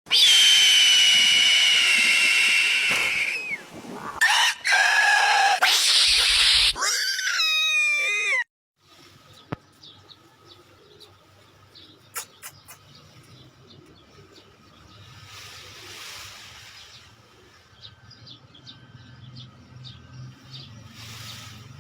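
Loud bird calls for the first eight seconds or so: a long high call, then shorter cries, then a quick run of wavering calls. After these, a much quieter outdoor background with scattered faint chirps.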